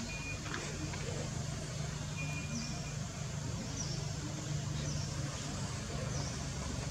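Outdoor background: a steady low rumble, with faint, short, high chirps about once every second and a quarter in the second half.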